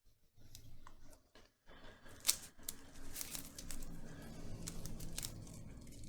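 Stretch-release adhesive strip being pulled out from under an iPhone 7 battery: a continuous rough scraping, stretching noise with scattered sharp clicks, the sharpest about two seconds in.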